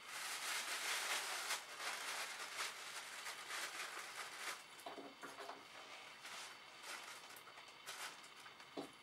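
Rustling and crinkling of paper and plastic party decorations being handled, dense for the first couple of seconds and then thinning into scattered crackles.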